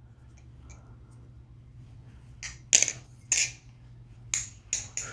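MachineWise Mayrn Lite balisong being flipped, its handles and blade clacking against each other. Faint ticks at first, then a run of sharp, separate clacks from about halfway.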